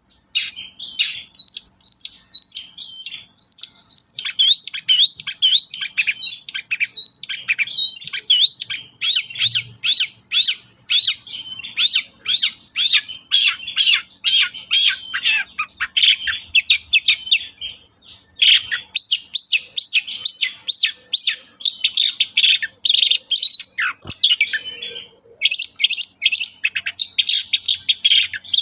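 Long-tailed shrike singing a fast, vigorous song of high, sharply looping notes in quick succession, with two short breaks, one past the middle and one a few seconds before the end.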